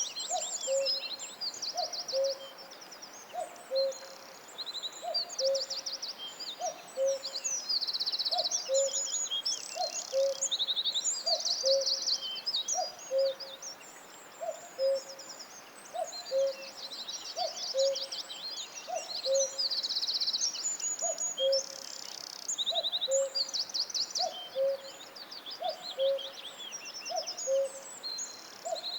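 Forest birdsong: several songbirds trilling and chirping high and busily, over a low two-note hooting call. The call drops in pitch from its first note to its second and repeats steadily about once every second and a half.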